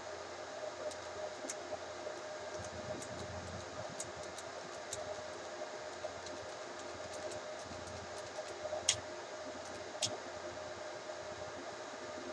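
Dell PowerEdge 2950 server's cooling fans running with a steady hum, with sparse keyboard key clicks and two sharper clicks late on.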